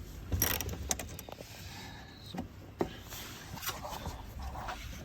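Irregular metal clicks and knocks of a socket ratchet and extension being handled and worked on a bolt behind a car's wheel arch.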